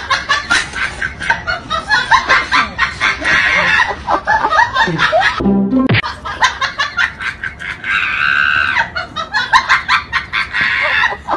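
Background music with a busy, fast rhythm. It breaks off briefly about five and a half seconds in, then carries on.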